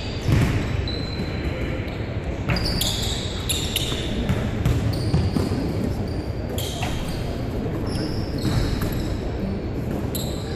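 Basketballs bouncing on a hardwood gym floor during a shooting drill, a sharp thud every second or so, with short high sneaker squeaks between them.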